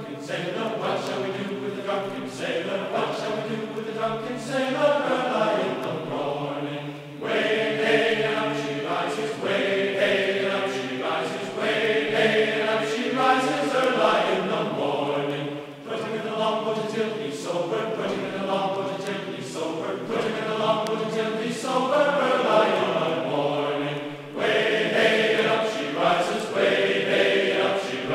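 Choral chanting music: several voices singing long held notes that slide between pitches, with no rhythm section.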